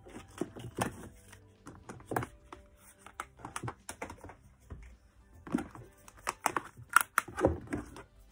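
Makeup palettes and compacts clacking and knocking as they are lifted out of a drawer and set down, in quick irregular handling sounds, loudest about seven seconds in. Soft background music plays underneath.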